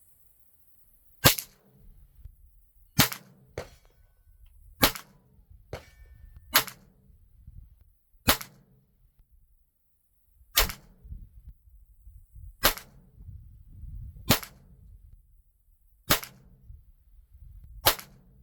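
Ten semi-automatic shots from a Ruger 10/22 .22 LR rifle with a 16-inch bull barrel, firing CCI Green Tag competition ammunition. The shots come as sharp cracks about two seconds apart, with a couple of much fainter clicks between the early shots.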